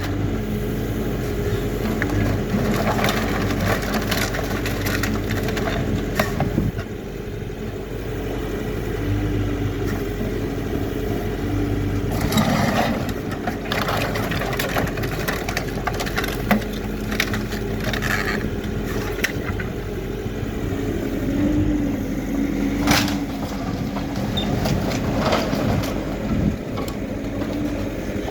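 HIDROMEK K4 Alpha backhoe loader's diesel engine running and changing pitch with the work, over the crunching and scraping of demolition rubble being broken up. Several sharp cracks stand out, a few seconds apart.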